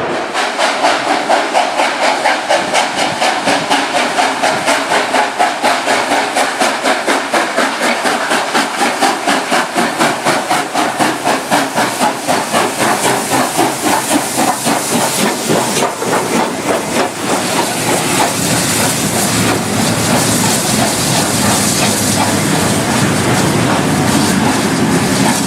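Steam locomotive 3642, a NSW C36 class 4-6-0, working hard. Its exhaust beats come at about four a second, then quicken and blur into a steady rush of exhaust and hiss after about fifteen seconds as the engine gathers speed.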